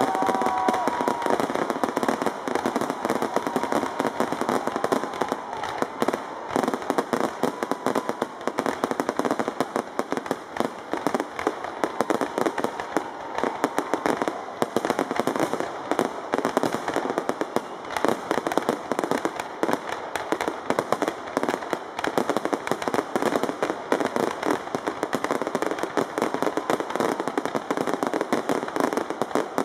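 Aerial fireworks display: a dense, unbroken barrage of shell bursts and crackling, many cracks a second.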